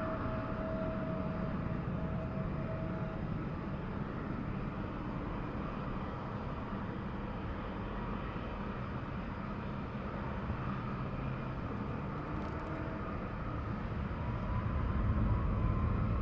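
Jet airliner engines running at a distance: a steady low rumble with a thin whine. Over the last couple of seconds it grows louder and a tone rises in pitch.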